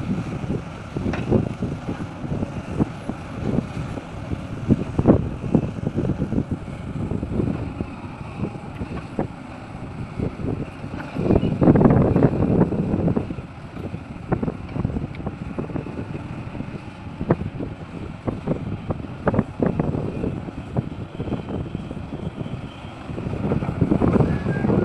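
Sumitomo SH350 excavator's diesel engine working, swelling in loud spells near the start, around the middle and near the end, with knocks and clatter throughout and wind on the microphone.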